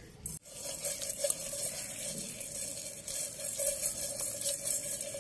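Boiled eggs rolling and sliding around a stainless steel bowl as it is shaken to coat them in salt, chilli and turmeric: a continuous rolling rustle with a steady ringing tone, starting abruptly about half a second in.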